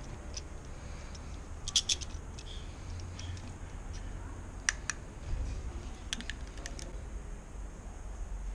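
Scattered sharp clicks and taps, a quick cluster about two seconds in and a few single ones later, over a low steady rumble.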